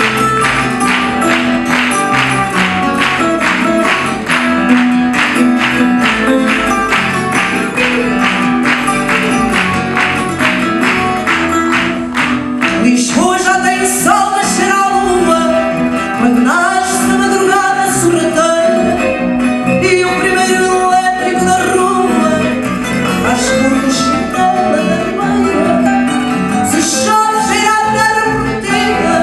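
Live fado: a woman singing to Portuguese guitar and guitar accompaniment. For the first twelve seconds the guitars keep up a fast, even plucked rhythm; after that her voice comes forward in long, wavering held notes.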